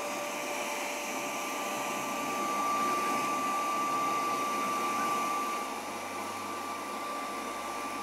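Proscenic 790T robot vacuum cleaning carpet: the steady hiss of its suction fan with a thin, steady high whine over it.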